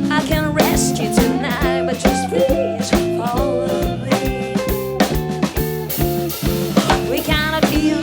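Band playing a blues-rock song: guitar and bass over a drum kit keeping a steady beat, with a wavering lead melody in short phrases.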